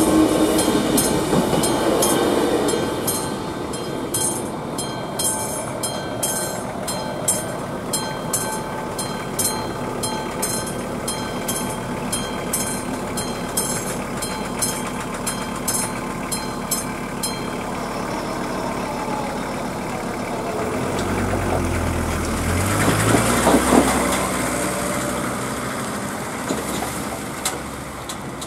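A level crossing's mechanical warning bell rings in rapid, even strokes, with a passing train's rumble fading over the first few seconds. The bell stops about two-thirds of the way through, and a small truck's engine then pulls away and revs up as it crosses the tracks.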